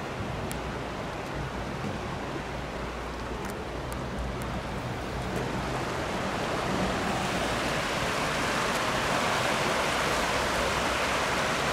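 Fast-flowing river in flood rushing steadily. It grows louder and brighter about halfway through, with a few faint clicks early on.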